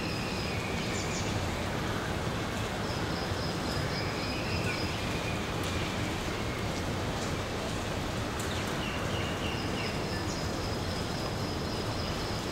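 Steady heavy rain falling, an even hiss throughout. Over it come several long, high, thin whistling tones, each lasting a second or two.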